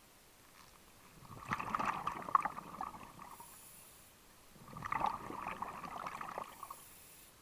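Scuba diver breathing through a regulator underwater: two exhalations, each a bubbling, gurgling rush of exhaust bubbles lasting about two seconds, the first starting just over a second in and the second about halfway through.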